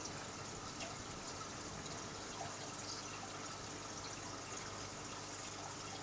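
Steady bubbling and trickling of aquarium water from an air stone's stream of bubbles, with small pops scattered through it.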